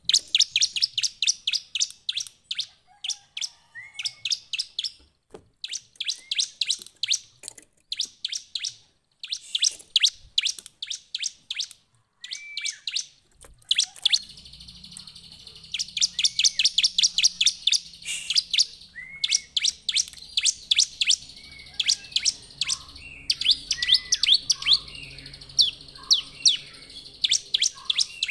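Bar-winged prinia (ciblek) singing in rapid trains of sharp, high chirps, about ten a second. The trains come in bursts of a second or two with short pauses between them, mixed with occasional lower slurred notes. From about halfway through, a low steady hum runs underneath.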